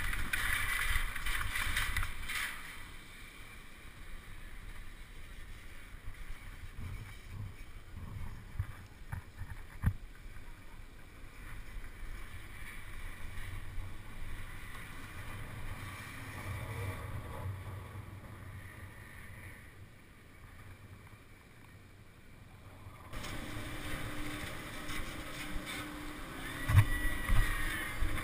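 Wind buffeting a camera microphone over a low rumble during a chairlift ride, with a few sharp clunks about ten seconds in. Near the end the sound changes abruptly to a steady hum with knocks.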